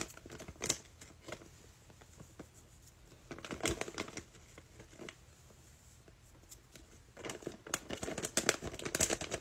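Crinkling and crackling as a crunchy fake-snow add-in is handled and worked into slime, in three bursts: a short one near the start, one in the middle, and a longer, louder one near the end.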